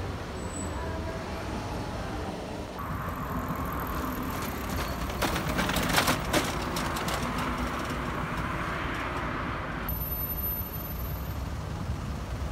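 City street ambience with road traffic: a steady rumble of passing vehicles, with a few sharp clicks and knocks near the middle.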